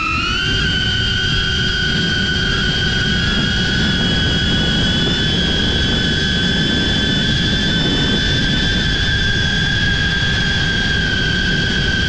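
DJI Avata drone with Axis C175 motors, its motors and propellers giving a steady high whine that rises slightly in pitch during the first second, over a low rumble of strong wind.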